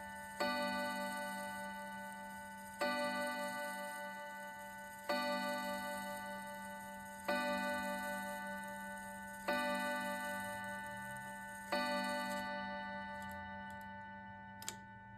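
Urgos triple-chime clock movement striking the hour: six identical strokes on the same note, about two seconds apart, each ringing and slowly fading. After the last stroke dies away there is one sharp click near the end.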